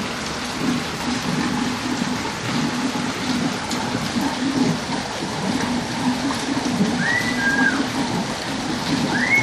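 Steady rush of falling and splashing water from rain and the tank's overflow of collected rainwater. Two short whistled notes, each rising then falling, come about seven and nine seconds in.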